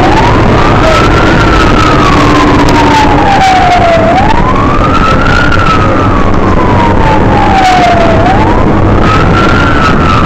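Fire truck siren wailing, its pitch rising quickly and then falling slowly, three cycles about four seconds apart, over the steady engine and road rumble of the moving truck.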